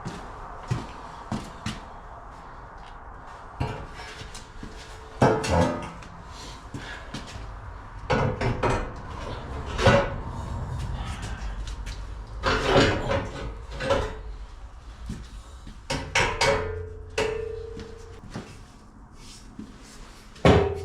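Steel bumper and its mounting brackets clanking and knocking as the bumper is shifted into place on the brackets, about eight separate knocks, a couple leaving a short metallic ring.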